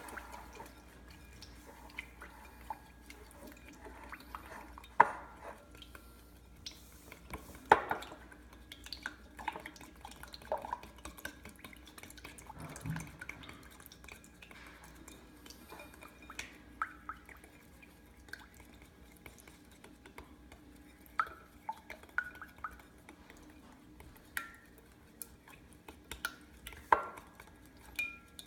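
A spoon stirring school glue, water and food dye in a mixing bowl, with irregular clinks and taps of the spoon against the bowl; a few louder knocks stand out.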